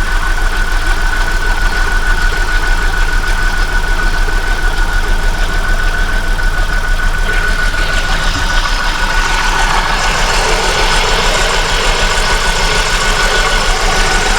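Holden Commodore 3.8-litre Ecotec V6 idling steadily while warming up, with a steady high whine over the rumble. A broader rushing noise builds from about nine seconds in.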